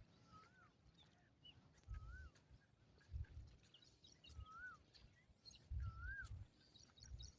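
Faint bird calls: a short whistled note that rises then falls, repeated every one to two seconds, with low rumbles of wind on the microphone.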